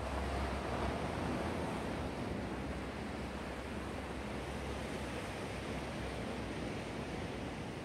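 Sea waves washing onto the shore in a steady rush of surf, slightly louder in the first second or two.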